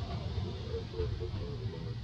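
Steady low background rumble, with a few faint wavering sounds in its middle.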